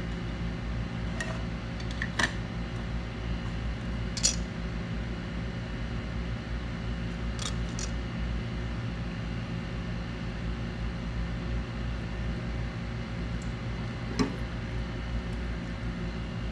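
Steady hum of a small fan or motor running, with a few faint clicks and taps at intervals.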